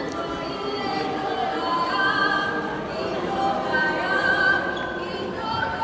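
Choir singing a cappella, several voices together.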